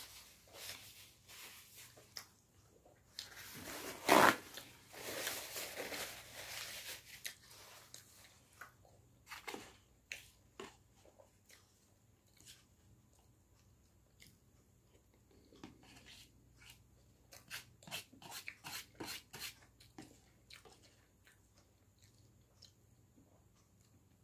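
Eating with a knife and fork: chewing and scattered sharp clicks of metal cutlery on a plate of beef and greens. A loud rustle lasts a few seconds near the start, and a quick run of clicks comes about three-quarters of the way through.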